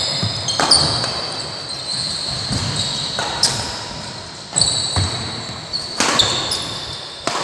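Badminton doubles rally: a string of sharp racket strikes on the shuttlecock, roughly one every second or so, echoing in a large hall, with short high squeaks from court shoes on the floor between hits.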